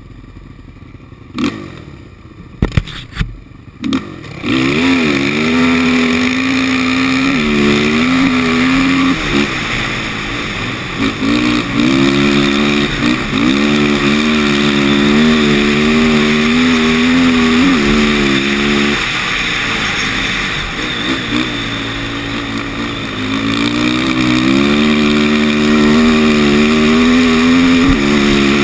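A 450-class sport quad's single-cylinder engine, heard from a camera on the machine. A few sharp knocks come in the first four seconds. About four seconds in the engine revs up hard and runs at high revs, its pitch rising and dropping again and again as the rider throttles on and off around the track, with wind noise over the microphone.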